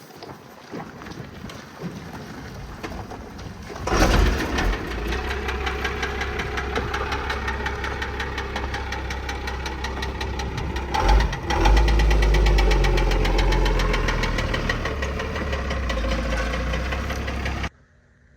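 1996 Dodge pickup's 5.9-litre 12-valve Cummins diesel catching suddenly about four seconds in as it is push-started, then running with a rapid knocking clatter, which the owner puts down to a little piston knock. The engine note grows heavier about eleven seconds in, and the sound cuts off suddenly near the end.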